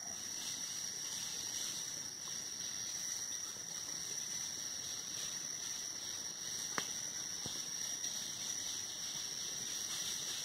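Steady high-pitched insect drone, with a single sharp click about seven seconds in.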